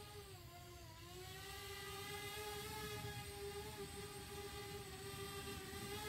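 DJI Spark quadcopter, fitted with propeller guards, climbing after takeoff: its motors and propellers give a steady, faint whining hum. The pitch dips briefly about a second in, then settles.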